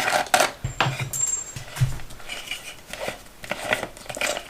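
Hand tools and metal parts clinking, tapping and rubbing in scattered knocks while a motorcycle's turn signals are being unbolted.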